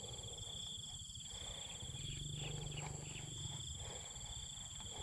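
Insects trilling steadily in a high-pitched chorus, over a low rumble.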